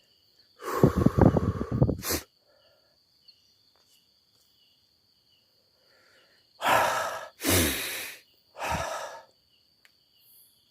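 Heavy breaths or sighs blown close to the microphone: one long one about a second in and three shorter ones near the end. Crickets chirp steadily underneath.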